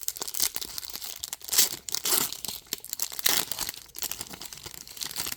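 Crinkling and tearing of a foil trading-card pack wrapper being handled and ripped open, in irregular rustling bursts with a louder stretch a couple of seconds in.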